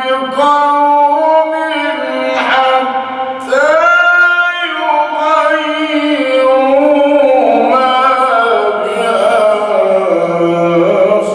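A man's voice in melodic Quran recitation, holding long ornamented notes whose pitch glides up and down, with brief breaths between phrases.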